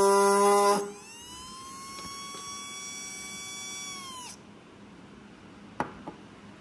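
Small electric RC car motor spinning a cutting disc on its shaft, working as a makeshift grinder, with a loud high whine that drops sharply about a second in. The motor then runs on more quietly, its whine rising in pitch and then winding down about four seconds in. Two light knocks come near the end.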